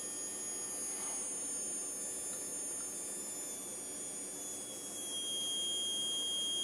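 Small R140 brushed DC motor running unloaded on a bench power supply, a steady high-pitched whine. About five seconds in a new, lower whistling tone comes in and holds, with the motor at about 3 volts.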